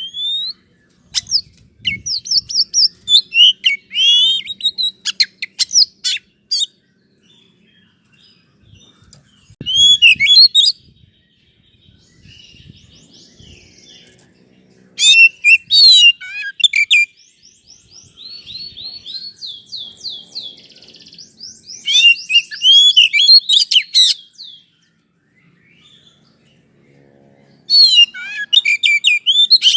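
Oriental magpie-robin (kacer) singing: loud, varied phrases of rapid whistles and trills in bursts of a few seconds, separated by short pauses. Past the middle comes a run of evenly repeated notes.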